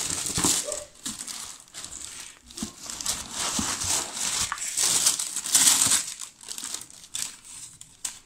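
Thin tissue paper crinkling and rustling as hands pull it back from a pair of sneakers in a cardboard shoebox, in several uneven bouts.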